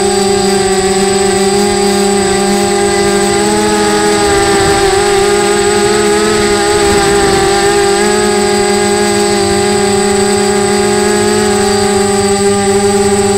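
Mini T4 quadcopter's electric motors and propellers whining in flight, heard up close from its onboard camera: a loud, steady buzz of several tones whose pitch wavers slightly as the throttle shifts.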